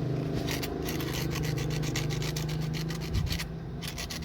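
Sandpaper rubbed in quick back-and-forth strokes over the small metal contact studs of a car's horn switch, scouring off rust and dirt so the contacts connect again; the strokes stop about three and a half seconds in.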